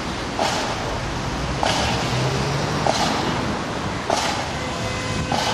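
Marching band's drum tapping out a slow marching beat, five single strokes about one and a quarter seconds apart, over a steady background hiss.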